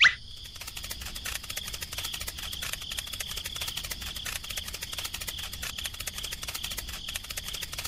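Crickets chirping steadily in a fast, continuous trill.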